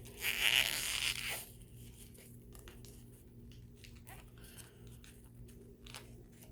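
Packing tape being pulled and torn off a taped-shut box, with a loud tearing rip in the first second or so, followed by quieter scratching and clicking as fingers pick at the tape.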